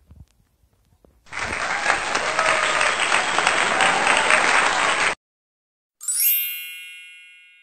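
Applause sound effect, a dense patter of clapping for about four seconds that cuts off abruptly. About six seconds in, a bright ringing chime with several tones starts and slowly fades.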